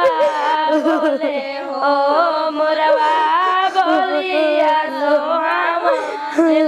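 Several women singing a Bhojpuri wedding folk song together, their voices overlapping and wavering.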